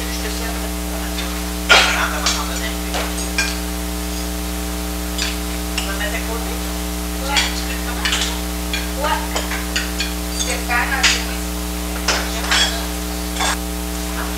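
Scattered clinks and clicks of cutlery and dishes at a dinner table, over a steady electrical hum.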